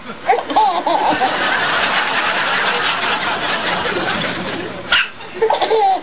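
A baby laughing in short squealing bursts at the other baby's hiccups, over a steady wash of laughter. One sharp hiccup cracks out about five seconds in.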